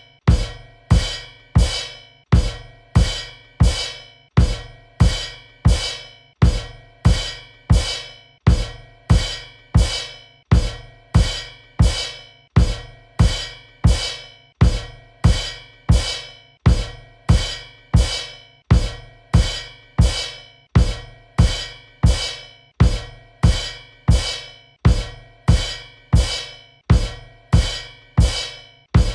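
Cymbal kicks: a bass drum and a cymbal struck together over and over at an even pace, about three hits every two seconds. Each hit is a deep thud with a bright cymbal ring that dies away quickly.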